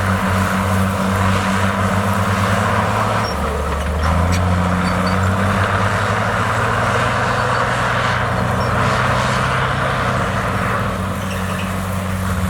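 Heavy diesel engine of earthmoving machinery running continuously. Its pitch drops about three seconds in and comes back up a second later, with a slight dip in level near the end.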